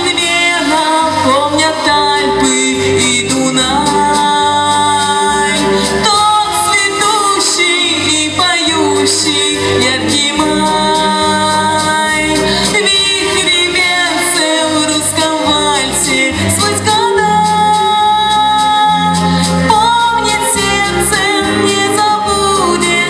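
A young woman singing live over a recorded pop backing track with a steady beat, holding long wavering notes.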